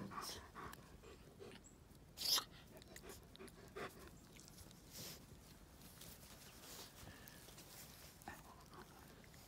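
Two small dogs gnawing and tugging at a stick on grass, with faint scuffling and chewing noises and one short, sharp louder sound about two seconds in.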